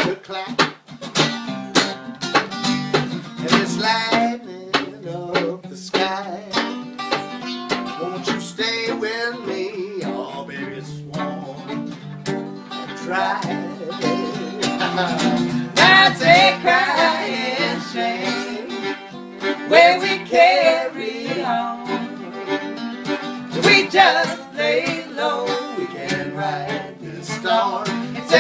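Fiddle and guitar playing an instrumental passage of a country-folk tune, the fiddle bowing the melody over the strummed guitar.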